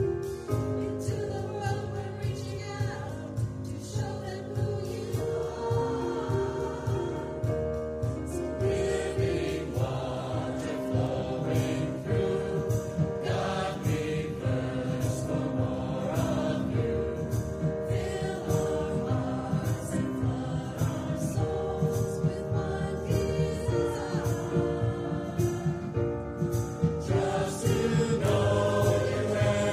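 Mixed choir of men and women singing an anthem in parts, several held notes sounding together and changing every second or so.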